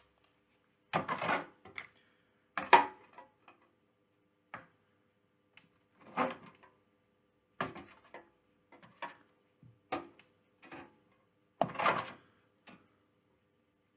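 Irregular handling knocks and rattles of containers, in short clusters every second or two, the loudest about a second, three seconds and twelve seconds in.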